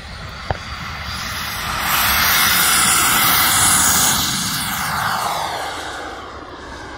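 Turbine of a radio-controlled model jet running at high power with a high whine as the jet accelerates down the runway and lifts off. It is loudest as it passes, a couple of seconds in, then drops in pitch and fades as the jet climbs away.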